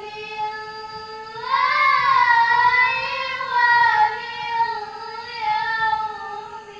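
A young girl singing long held notes without words. A steady note gets louder and rises in pitch about a second and a half in, then wavers slowly.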